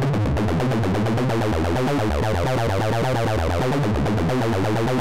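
Acid techno lead from the Serum software synth: a sawtooth and a square oscillator through a resonant low-pass filter, its cutoff swept by a fast LFO, with drive and diode distortion. It plays a repeating sequence in short, rhythmic pulses.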